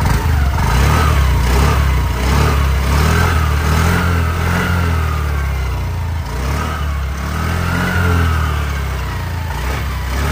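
Honda Activa 110cc single-cylinder scooter engine idling and revved gently several times, its pitch rising and falling back between blips.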